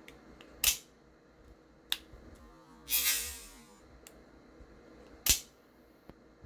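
Lightning Elite out-the-front knife firing its blade with a sharp snap, then a second loud snap about four and a half seconds later. A few faint clicks and a short hiss come in between.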